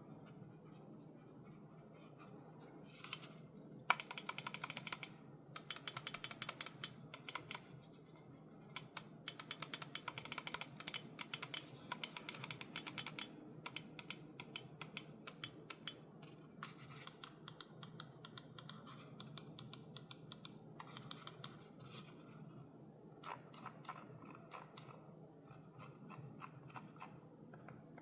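Buttons of a Logitech G Pro X Superlight 2C wireless gaming mouse clicked rapidly in runs of many quick clicks, with short pauses between runs.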